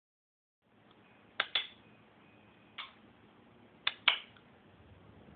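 A few sharp clicks or taps over faint room hiss: two close together about a second and a half in, one near three seconds, and another close pair around four seconds.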